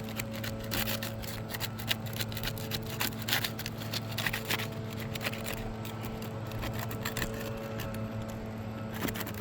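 Putty knife prying under asphalt roof shingles, breaking the seal strip with irregular scraping and crackling clicks, dense for the first half and sparser later, as the shingle tears coming free. A steady low hum runs underneath.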